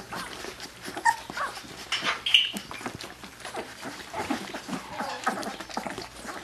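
Two-week-old Labrador retriever puppies nursing, giving brief high squeaks and small whimpers among a patter of short suckling clicks.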